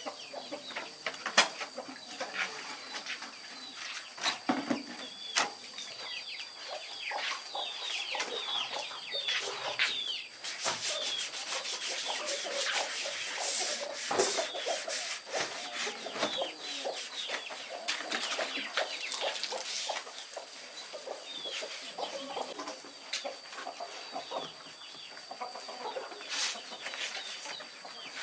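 Chickens clucking, with many short, high, falling chirps and scattered knocks and rubbing sounds.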